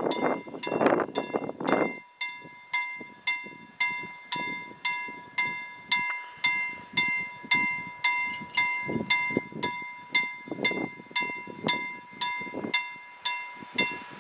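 Railway level crossing warning bell ringing in steady strikes, about two a second, each stroke ringing on: the crossing has been triggered by an approaching train. A low rushing noise sits under the first two seconds.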